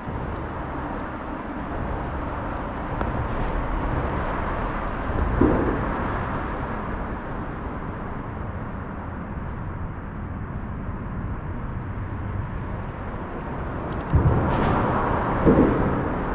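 Road traffic passing close by: a steady rush of tyres and engines that swells as vehicles go by about five seconds in and again near the end.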